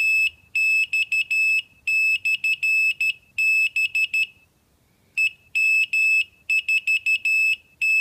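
Homemade automatic Morse code keyer sending its beacon message as a high-pitched beep keyed on and off in dots and dashes, with a short break about halfway through.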